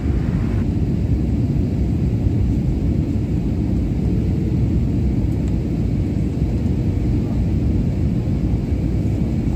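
Steady low rumble inside a jet airliner's cabin during the descent to land: engine and airflow noise heard from a window seat.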